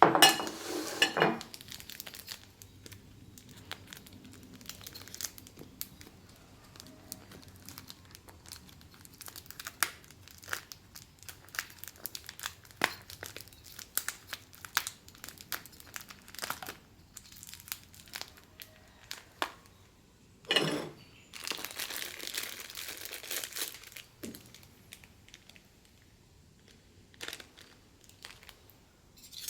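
Crinkling and rustling handling noises with scattered small clicks and knocks from kitchen food preparation, loudest right at the start and again in a noisy stretch about twenty seconds in.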